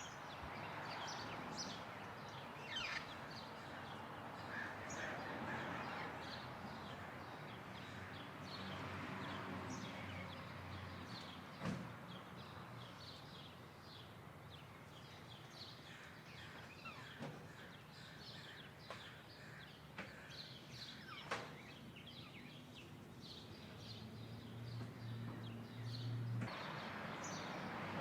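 Red-crowned Amazon parrots calling: many short squeaks and chirps and a few calls sliding down in pitch, over a steady background hiss that changes abruptly near the end.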